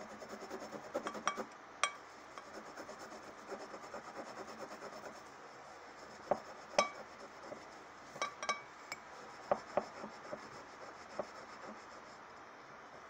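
Hand rubbing a glass jar with a cloth and baking-soda paste, scrubbing off sticky label residue in quick strokes, then more slowly. Several sharp clinks of the glass ring out along the way.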